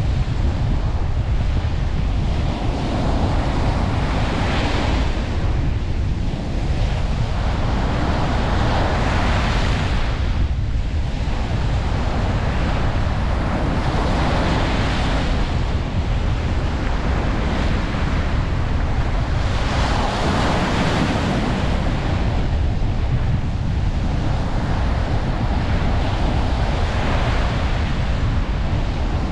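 Ocean surf breaking on a beach, the wash swelling and easing every few seconds, with a steady low rumble of wind on the microphone.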